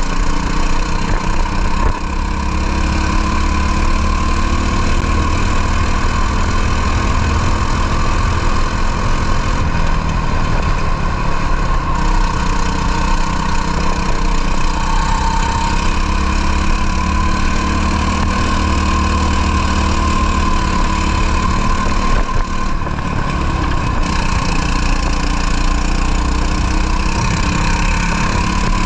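Two-stroke racing kart engine running steadily, its pitch drifting only gently up and down rather than revving hard.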